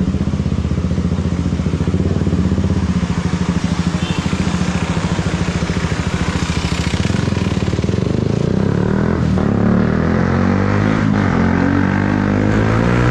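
KTM Duke 125's single-cylinder engine running through an aftermarket Akrapovic-style short-can exhaust while ridden at low speed. The note is steady at first, then rises and falls repeatedly over the last few seconds as the throttle is opened and eased.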